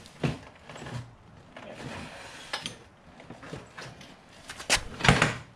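Scattered metallic clicks and knocks as a motorcycle's rear axle is worked out of the wheel and swingarm, with two louder clanks close together near the end.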